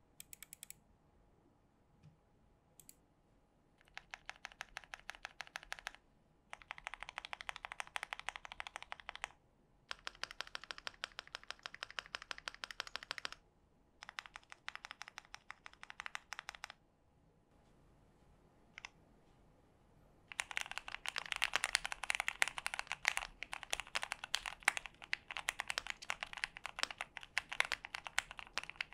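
Typing on a Keychron Q1 mechanical keyboard with lubed Cherry MX Black Hyperglide linear switches, dampened with a tape mod, PE switch pads, plate foam and silicone sheets. It types in short bursts of a few seconds with pauses between them, then runs continuously and a little louder for the last third.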